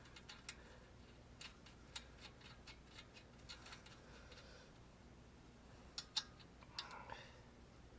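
Faint, irregular metallic clicks and ticks from hand tools at work, in short runs, the loudest a couple of sharp clicks about six seconds in.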